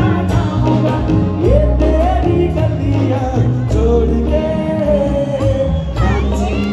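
Live band with a male lead singer, backed by keyboard and electric guitar, played loud through the stage speakers. Long held sung notes bend in pitch over a strong bass line.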